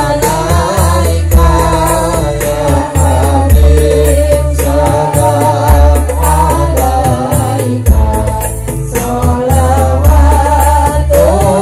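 Loud music with a sung melody over a heavy bass line.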